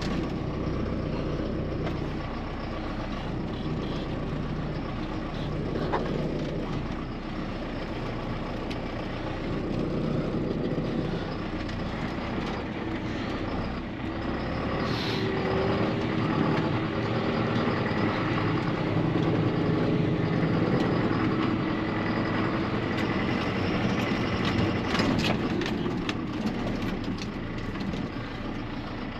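John Deere 6430 tractor engine running steadily while driving, towing a tandem tipper trailer. The low engine note shifts about halfway through, and a few short clicks and rattles come near the end.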